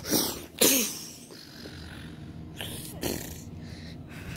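A child making mouth sound effects for a toy battle: short spluttering, hissing bursts, one early burst sliding into a falling voiced cry, and two more about two and a half to three seconds in.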